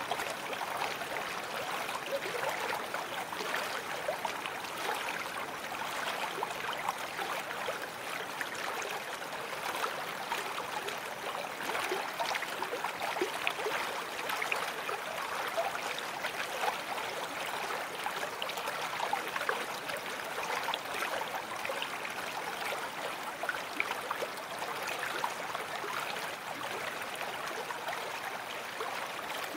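Babbling brook: water running steadily, with many small gurgles and splashes.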